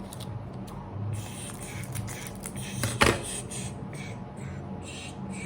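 Pokémon card packs and cards being handled, with paper and foil rustling, over a steady low hum. One sharp knock about three seconds in.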